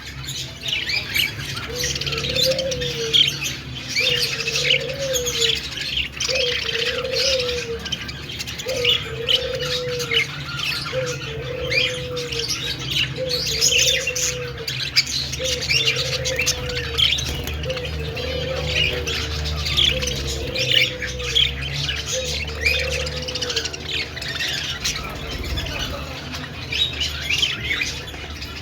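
Budgies chirping and warbling in a busy, continuous chatter. Beneath it, a lower, rounded call repeats about ten times, roughly once a second, through most of the stretch before stopping near the end.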